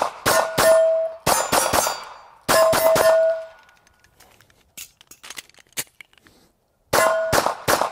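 Ruger American 9mm pistol fired in quick strings at steel targets, the hits setting the steel plates ringing with a sustained clang. There are several shots in the first three seconds, then a pause of about three seconds with only faint small clicks, then another rapid string near the end.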